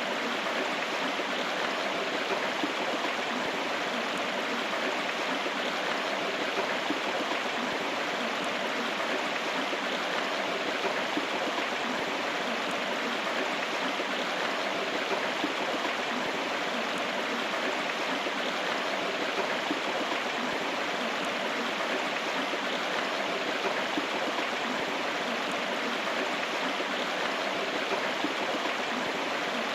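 River water flowing and rushing steadily, with no change.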